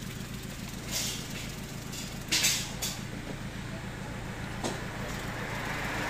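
Clear plastic bag crinkling in a few short bursts, loudest about two and a half seconds in, with a single click near the end, over a steady low motor hum.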